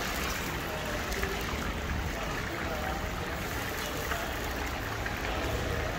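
Meat frying in hot oil in a huge plov cauldron, a steady sizzle.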